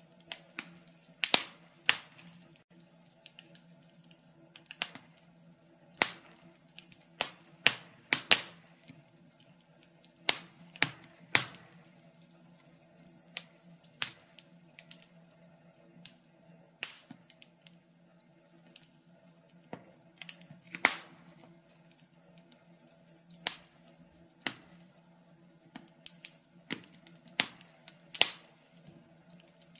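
Log fire in a fireplace crackling: irregular sharp pops and snaps from the burning wood, often a second or so apart and sometimes several in quick succession, over a faint steady low hum.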